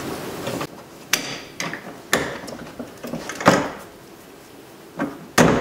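About five separate sharp clicks and knocks as the window crank handle on a Ford F-150 door panel is fastened with a screwdriver and handled, the loudest near the end.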